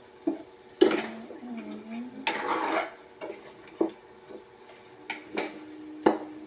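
Metal cookware clanking: a utensil and lid knocking and clinking against a cooking pot, about six sharp knocks that ring briefly, the loudest about a second in, with a short scraping rush in the middle.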